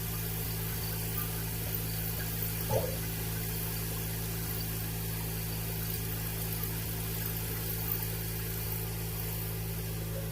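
A steady low mechanical hum, like an idling motor, with a single short knock a little under three seconds in.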